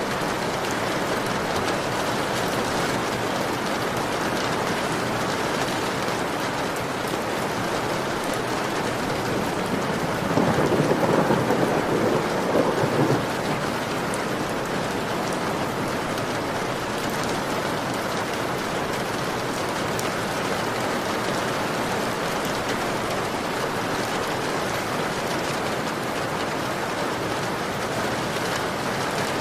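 Heavy rain beating steadily on a window pane. About ten seconds in, a louder low rumble swells for roughly three seconds, then fades back into the rain.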